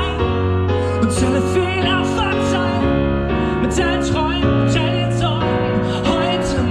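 Live pop music: piano and bass playing chords with a voice singing over them.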